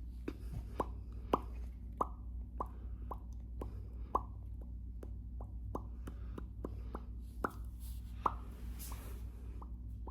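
A person making a string of hollow mouth pops, about two a second at a slightly uneven pace, each pop a short, sharp plop whose pitch changes from one pop to the next. A steady low hum runs underneath.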